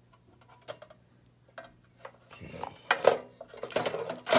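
Hands taking the plastic top cover off a 1/12-scale RC excavator and handling the board, battery and wiring beneath. Scattered light clicks, then a louder run of clattering and knocks in the last couple of seconds.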